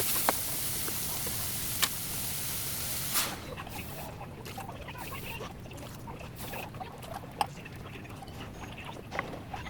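Kitchen cooking sounds from a pan: a steady hiss stops suddenly about three seconds in, followed by scattered light clicks and taps.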